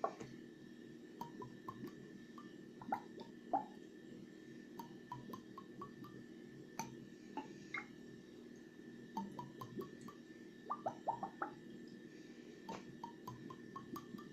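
Whisky glugging from a bottle in bursts of quick gurgling blips, with small glassy clicks between them.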